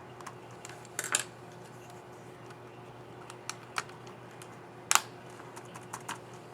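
Sharp plastic clicks from the keycap and scissor mechanism of an HP 15 CR0062ST laptop keyboard being pressed by hand: a quick cluster about a second in, a few single clicks, and the loudest double click about five seconds in, over a faint steady hum.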